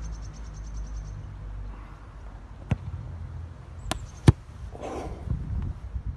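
Football being kicked: a few sharp knocks, the loudest a hard strike a little after four seconds in, over a low wind rumble on the microphone.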